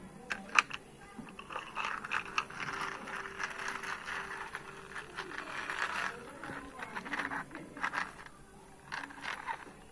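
Plastic toy scooter pushed along a concrete floor: its plastic wheels rolling and scraping, with sharp clicks and knocks of plastic parts, the loudest about half a second in.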